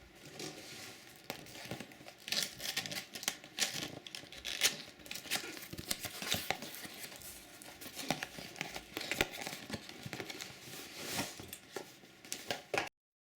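Crinkling, rustling handling noise, like packaging being handled, with many irregular sharp clicks and crackles; it stops abruptly near the end.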